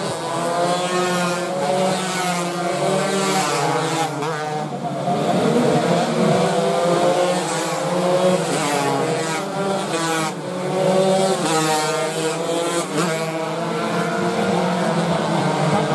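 Several two-stroke underbone racing motorcycles of a stock 116 cc class revving hard as they pass in a pack, their engine notes rising and falling and overlapping one another.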